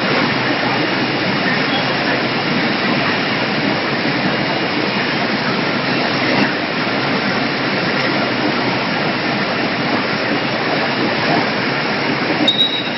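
Poultry processing line running: a loud, steady wash of machinery and running or spraying water noise. A brief high squeak sounds near the end.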